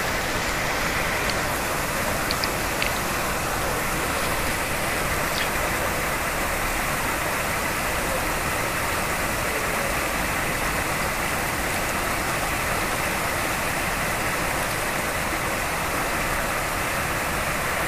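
Water pouring out of a corrugated metal culvert and splashing into the pool below, a steady rushing. It is only a partial flow: the beaver dam blocking the culvert's upstream end has been loosened but not cleared, and it is nowhere near enough.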